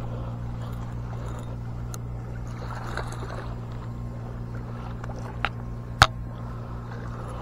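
Zebco 33 spincast reel being cranked to bring in a hooked bass, a steady low whir, with a few sharp clicks, the loudest about six seconds in.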